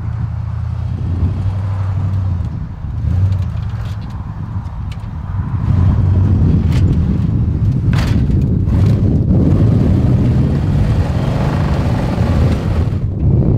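Off-road 4x4 rock crawler's engine running under load as it climbs over boulders. The engine grows louder about halfway through, and a few sharp knocks follow.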